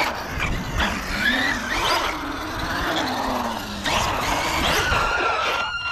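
Arrma Kraton EXB RC truck running on 6S LiPo power across skatepark concrete: the brushless motor whines, its pitch rising and falling with the throttle, over the noise of the tyres on the concrete.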